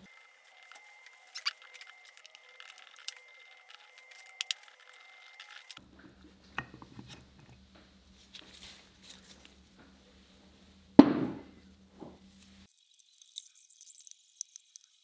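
Light metal clinks and taps of three-jaw lathe chuck parts and steel socket-head bolts being handled, with one loud metal clank that rings briefly about eleven seconds in.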